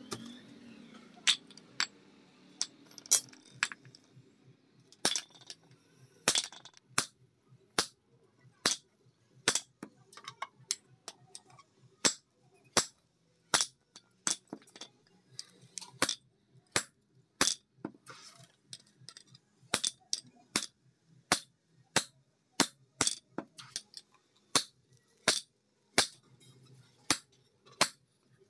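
Hand hammer striking a hot-cut chisel driven into hot iron on a steel anvil block: sharp metallic blows, a few scattered at first, then a steady rhythm of a little more than one a second.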